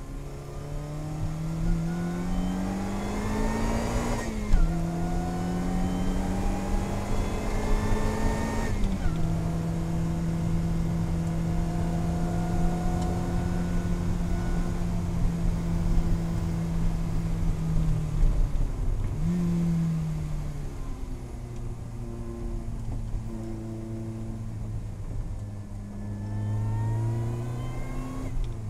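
Lotus Elise Cup 250's supercharged 1.8-litre four-cylinder engine heard from inside the cockpit. It pulls hard through two upshifts, about 4 and 9 seconds in, then holds a steady high-speed note for about nine seconds. It drops off under braking with a quick downshift blip around 19 seconds and rises again near the end.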